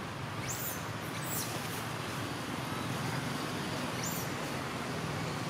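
Steady outdoor background noise with a low hum like distant traffic. Three short, very high, falling chirps come about half a second, a second and a half and four seconds in.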